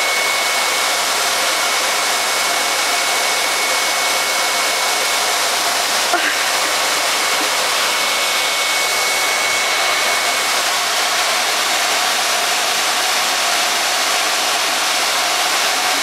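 Canister vacuum cleaner running steadily: an even rush of air from its motor and exhaust, with a thin high whine that drops out about two-thirds of the way through.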